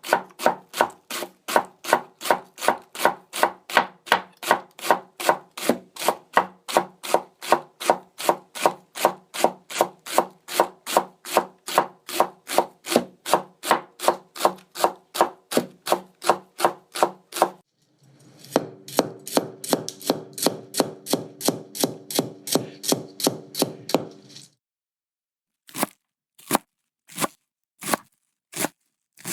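Houchou (Japanese kitchen knife) chopping ingredients on a cutting board in an even rhythm, about three strokes a second. Partway through comes a run of quicker cuts, then a short pause and a few slow, spaced chops near the end.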